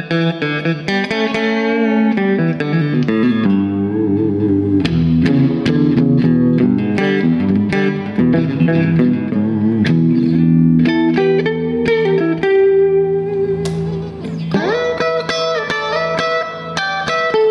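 Electric guitar played solo, picking a run of single notes and chords. About fourteen and a half seconds in, a note slides up in pitch and is held.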